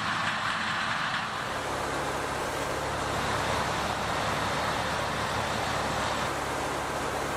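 Combine harvester running in the field: a steady machine noise with a low engine hum. About a second in, the sound shifts and a deeper hum comes up.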